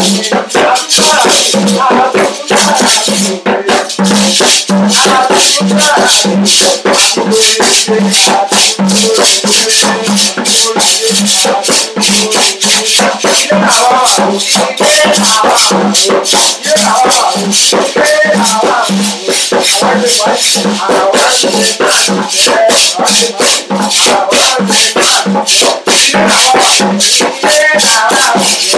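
Live hand percussion: a skin-headed frame drum struck with a curved stick keeps a steady low beat about every half second. Over it a bead-netted gourd shaker (shekere) rattles continuously.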